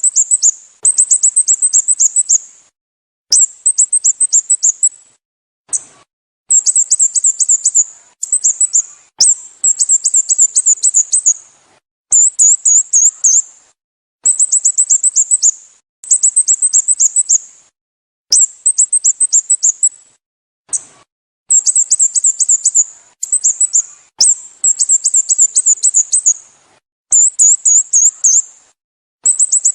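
Sooty-headed bulbul calling: quick runs of sharp, high-pitched chirps, each run lasting about a second, repeated over and over with short pauses between.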